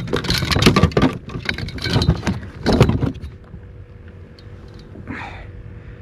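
A rapid run of clattering knocks and thumps on a plastic kayak hull as a freshly landed speckled sea trout flops on the deck and is handled, dying down about three seconds in.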